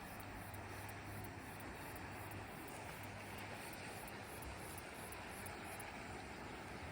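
Steady wind noise over open ground, with a fast, even, high-pitched insect chirping running underneath.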